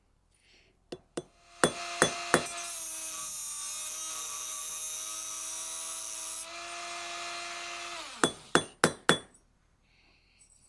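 A few clinks, then the forge's camping air pump running: a steady hum with a rush of air for about six seconds, dropping slightly in level before it cuts off. Then four quick, sharp hammer strikes on metal, a punch being driven into the steel striker.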